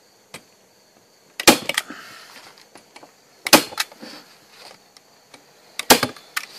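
Manual staple gun driving staples through metal flashing into a wooden frame: three sharp snaps about two seconds apart, each followed closely by lighter clicks.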